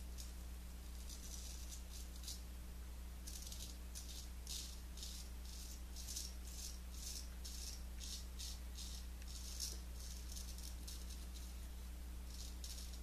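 Straight razor scraping through lathered stubble on the cheek and jaw in short, faint rasping strokes, about two a second through the middle, over a steady low hum.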